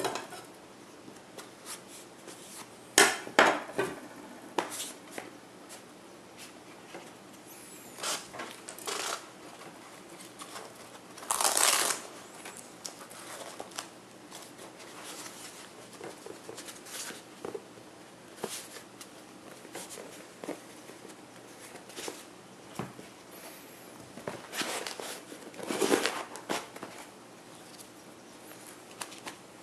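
Handling sounds of kitchen knives and a foam knife case on a wooden table: scattered knocks, taps and scrapes as knives are slid into the case's slots, a strap is wrapped around it and it is set into a fabric bag. The loudest knocks come about three seconds in, with a short rough rustle near the middle and another cluster near the end.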